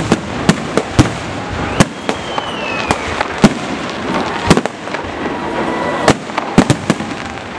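Aerial firework shells bursting in an irregular string of about a dozen sharp bangs over a steady crackling hiss, with a faint falling whistle about two seconds in.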